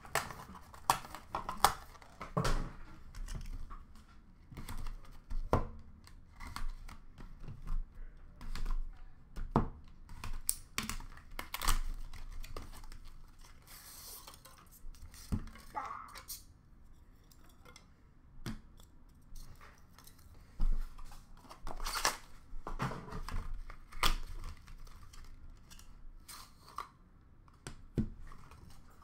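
Hands unpacking a hockey card box: cardboard and wrapping torn and rustled, with scattered sharp clicks and taps of hard plastic card cases being handled and set down.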